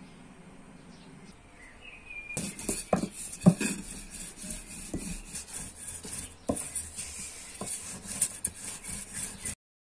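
Lahmacun frying in a hot pan: a crackling sizzle starts suddenly about two seconds in, with several sharp knocks of a utensil against the pan.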